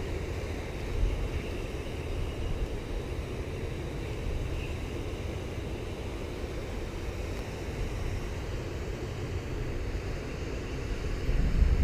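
Wind buffeting the microphone, a steady low rumble that swells in a stronger gust near the end.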